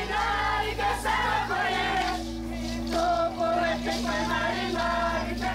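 Sateré-Mawé villagers singing the chant of the bullet-ant glove initiation, repeating phrases about a second long, over a steady low drone.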